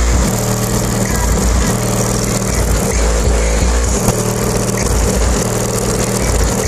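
Deep bass-heavy music from a car's Kicker 15-inch subwoofers in a slot-ported enclosure, heard outside the car at the rear hatch. The low notes come in long held blocks that start and stop.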